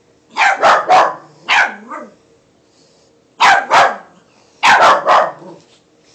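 A small puppy barking: three quick volleys of two to four short, high barks with short pauses between them.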